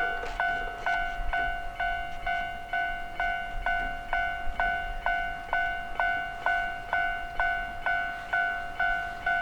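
Japanese level-crossing warning bell ringing steadily, a clanging tone repeated about twice a second.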